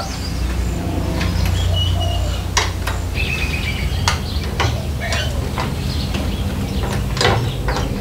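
Irregular metallic clinks and clicks from a makeshift jib crane's hand-worked lifting handle as a motorbike is hoisted, over a steady low hum, with birds chirping now and then.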